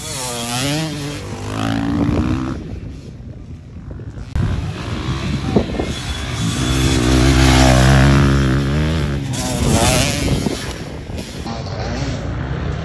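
Dirt bike engines revving up and falling back as the bikes ride past.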